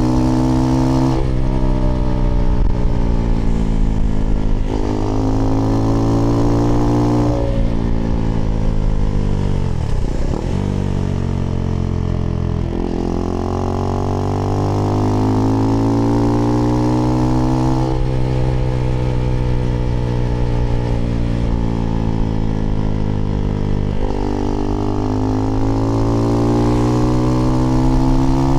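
Husqvarna Svartpilen 401's single-cylinder engine through an IxRace Mk.2 aftermarket exhaust with a modified dB killer, heard while riding. The revs climb and drop back at each upshift, fall away about ten seconds in as the bike slows, then build again through more gears.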